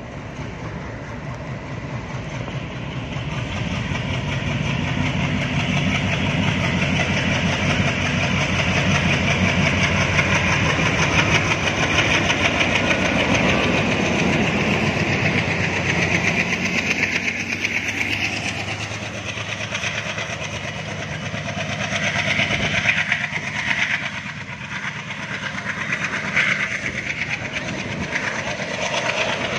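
WDG-3A Alco diesel locomotive accelerating a passenger train away, its engine note building over the first ten seconds as it passes. In the later part the coaches roll by with clickety-clack over the rail joints.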